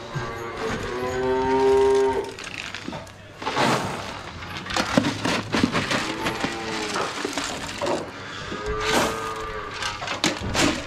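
Holstein calves mooing, three calls, the first the longest and loudest at about a second and a half, the others fainter around the middle and near the end. Scattered knocks and rustling come in between.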